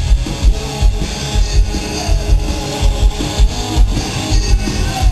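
Hard rock band playing live: electric guitars over a fast, steady drum beat, loud and continuous.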